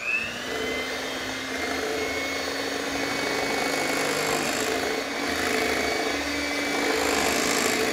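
Electric hand mixer switched on and running steadily, its beaters whirring through a creamed butter, sugar and egg cake batter to mix in orange zest and juice.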